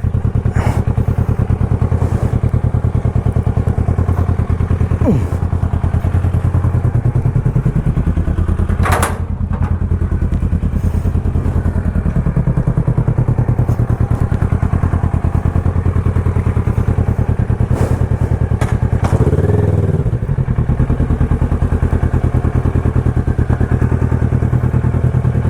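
Motorcycle engine running steadily under way, its low, fast firing pulses unbroken throughout, with a few sharp clicks.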